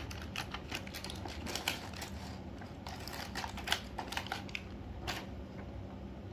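A toy helicopter's packaging being opened and handled: irregular light clicks and taps, thinning out after about five seconds.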